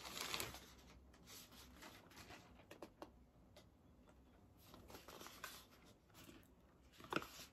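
Faint rustling and light taps of a cardboard product box and its plastic bag being handled, coming in short scattered spells.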